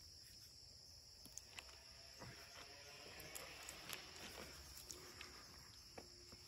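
Near silence: faint outdoor ambience with a steady high hum and a few soft scattered clicks.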